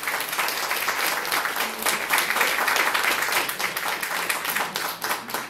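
Small audience applauding, many hands clapping steadily.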